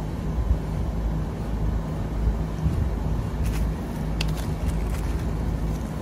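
Steady low machinery drone with a low hum, and a few light clicks about three and a half to four and a half seconds in.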